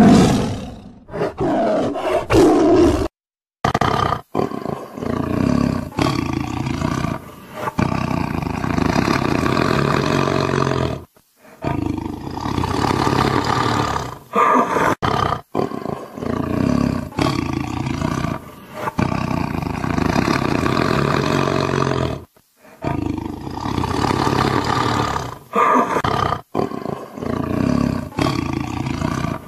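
Tigers roaring, one loud, deep call after another, with short silent breaks where the clips are cut together.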